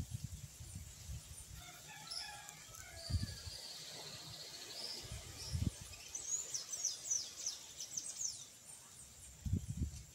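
Birds calling from the trees: a run of chirps, then a high trill, then a quick series of high falling notes. Low rumbles of wind buffet the microphone now and then.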